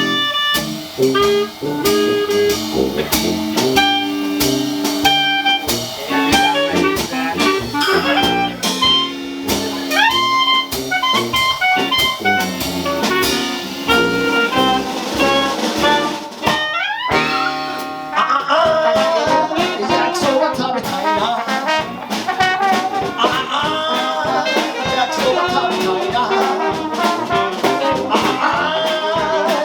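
Dixieland jazz band playing live, with brass horns leading over drums and rhythm section. About two-thirds of the way through, the music breaks off after a rising slide and switches abruptly to a different passage.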